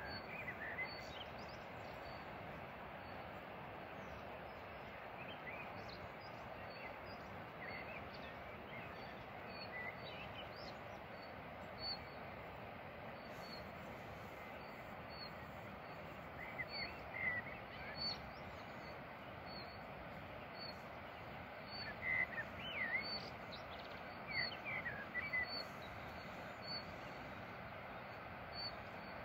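Wild birds chirping and calling over a steady rushing outdoor background. One high, short note repeats about once a second, and livelier bursts of chirps come in the second half.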